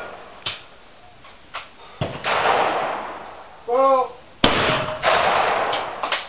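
Shotgun shots at a clay trap line: a few quieter shots from other stands in the first two seconds, each with a long echoing tail. Then comes a short shouted call, and about half a second later a loud, sharp close shotgun shot that rings on for over a second.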